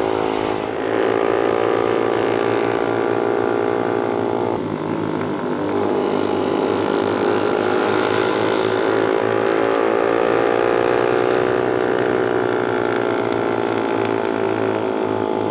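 Suzuki GSX-R150's single-cylinder engine running under way, with a steady rush of noise over it. Its pitch breaks about a second in and again around four and a half seconds in, then slowly rises and falls.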